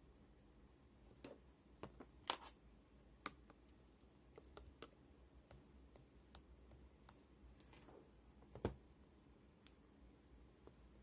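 Slime being played with by hand, giving scattered sharp little clicks and pops at an irregular pace, the loudest about two seconds in and again near nine seconds.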